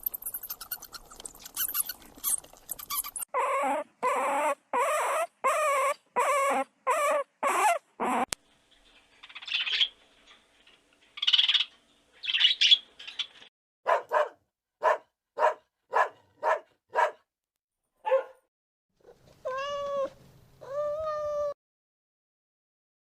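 A series of animal calls: high squeaks, then a steady run of pitched yelps about two a second, a few hoarse calls, another quick run of short yelps, and two longer whines near the end.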